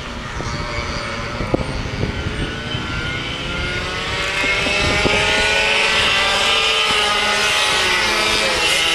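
Several go-kart engines running around a course, their pitch rising and falling as the karts accelerate and slow through the corners, louder from about four seconds in. Wind rumbles on the microphone underneath.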